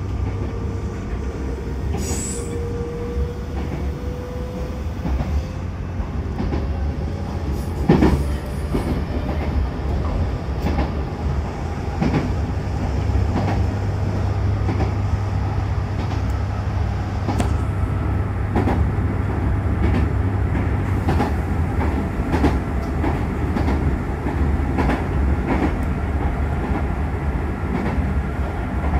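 Train running: a steady low rumble with irregular clacks of the wheels over the rails, and a faint tone rising slowly in pitch over the first five seconds or so. A brief high squeal comes about two seconds in.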